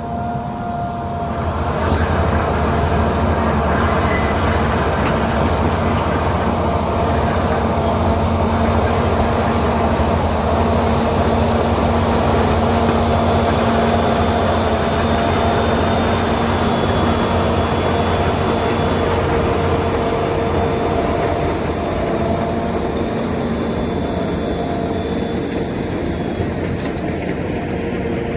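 John Deere 850 crawler dozer running steadily, its diesel engine rumbling under the clatter of its steel tracks, with thin high whining tones over it. It gets louder about two seconds in.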